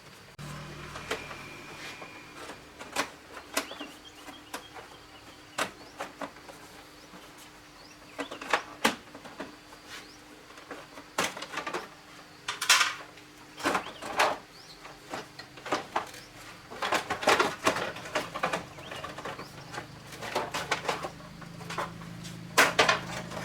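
Irregular clinks and knocks of hand tools and metal parts being handled while a motorbike is taken apart, some strikes ringing briefly, over a faint steady hum.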